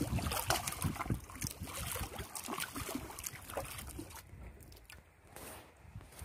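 Paddle strokes splashing and water slopping against the hull of a small canoe, with many short splashes and knocks. It quiets down about four seconds in, when the paddling stops.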